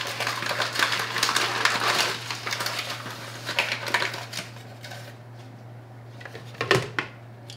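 Paper sack of feather-finish concrete powder rustling and crinkling as a hand scoops powder out of it. The rustling is loudest at first and fades after a few seconds. A couple of light knocks come near the end, over a low steady hum.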